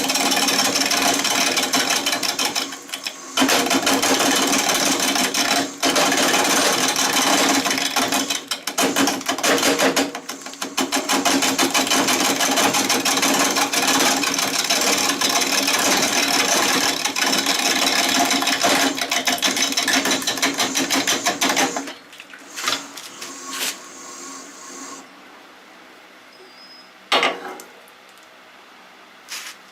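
Bowl gouge cutting into a maple burl spinning on a Shopsmith lathe: a loud, rough scraping over the machine's steady hum, with fast rhythmic ticking as the uneven burl strikes the tool, broken by short pauses. About three-quarters of the way through the cutting stops, leaving a much quieter background with a few knocks.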